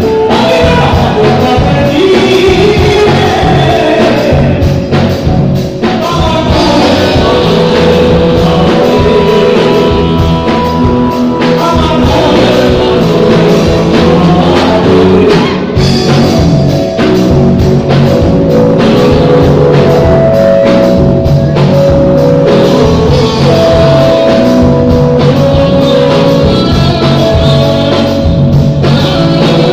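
Live folk-rock band playing loudly: a singer's voice over electric guitars and a drum kit, in a Bengali Baul song.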